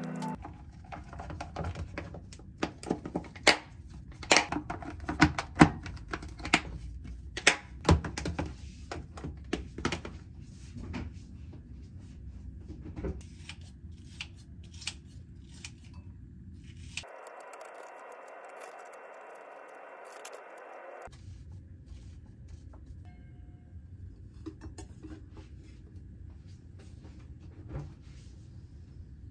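Kitchen tongs and clear plastic food containers clicking, tapping and knocking as they are handled, with sharp clicks coming thick and loud in the first ten seconds and thinning out after. A steady hiss runs for about four seconds past the middle.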